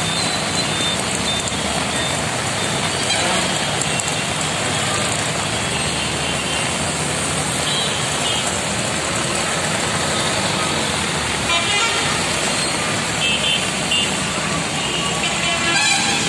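Heavy rain pouring on a flooded road as traffic wades through: a steady wash of rain and splashing water under running vehicle engines, with a few short horn toots.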